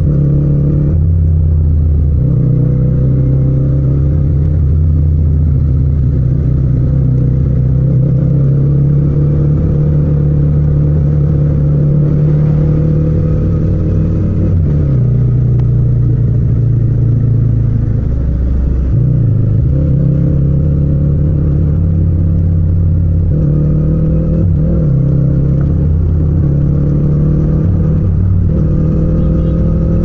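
Yamaha MT-07's parallel-twin engine running under way, its pitch rising and falling with the throttle and dropping at gear changes several times.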